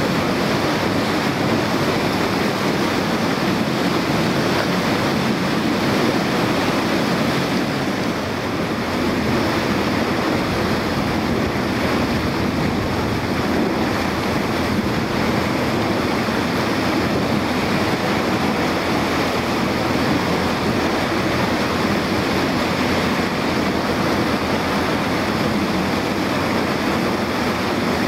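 Steady rush of water and wind buffeting the microphone aboard a small boat on open harbour water.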